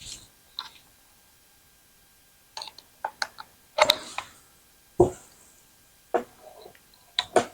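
Scattered sharp clicks and knocks from handling a cordless oscillating multi-tool while a blade is being fitted: the tool-free accessory clamping lever being squeezed and the blade clacking against the tool head, several in quick clusters with short pauses between.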